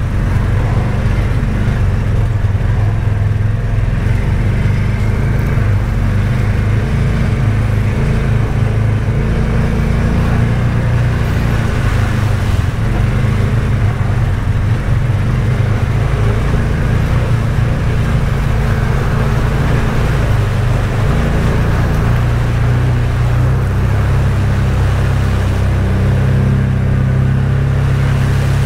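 Side-by-side UTV engine running steadily while driving along a trail: a loud, even, low engine drone with little change in pitch.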